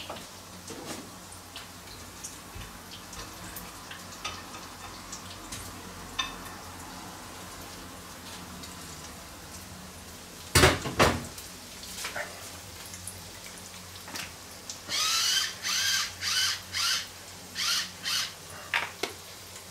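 Faint sizzling of breaded vegetable slices in hot oil in a frying pan, the hob just switched off, over a low steady hum. There is a loud clatter about halfway through, and a run of short kitchen handling noises near the end.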